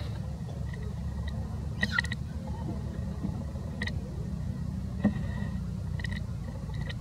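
Faint short high squeaks from a newborn monkey, about one a second, over a steady low rumble.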